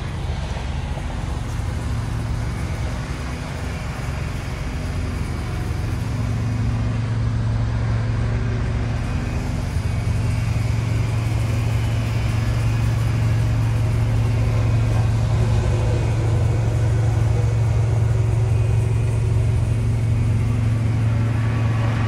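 Steady low hum of an idling truck engine, growing louder about six seconds in.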